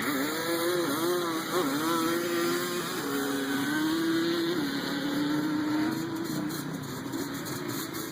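ATV engine accelerating hard down a drag strip. Its pitch climbs and drops back several times, then holds steady and fades near the end.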